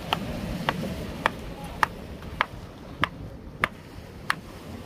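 Hammer tapping on rock at a steady pace: about eight sharp clinks, roughly one every half second or so, as a fossil hunter chips stone out of fallen cliff debris.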